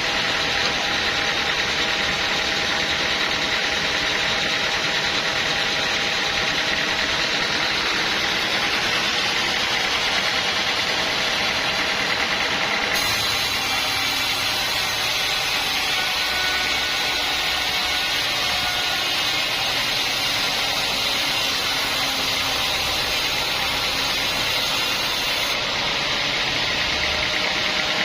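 Sawmill machinery running steadily: a loud continuous mechanical noise with steady whining tones. The sound changes abruptly about halfway through and again near the end.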